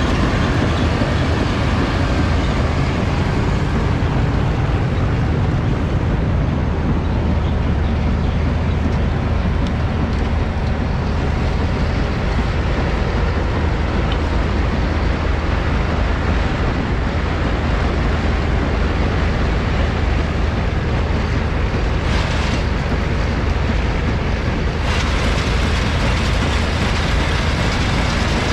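John Deere sugarcane harvester running close by, its diesel engine giving a steady low hum under the rattle of its elevator loading cut cane into a truck trailer. A brighter, hissier rush joins near the end.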